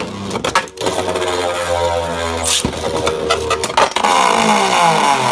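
Two Beyblade Burst tops, Dynamite Belial against Guilty Longinus, spinning in a clear plastic stadium: a continuous whirring scrape of their tips on the plastic, broken by a few sharp clacks. Near the end the whine slides down in pitch as the tops slow.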